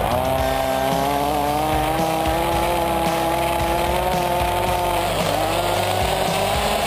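Rovan Baja 5b's 27.5cc two-stroke engine, heard up close from the buggy, revving up at the start and holding a high, steady rev while the buggy runs over gravel. About five seconds in the revs drop briefly and then climb again.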